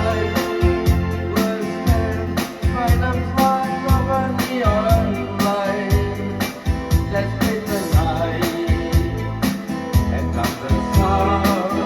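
Music: a song with a singing voice over a steady drum beat and bass.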